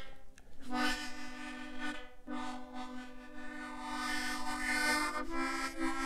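Harmonica playing slow, long-held chords, with a short break about half a second in and another around two seconds; the chord moves up a step just after five seconds in.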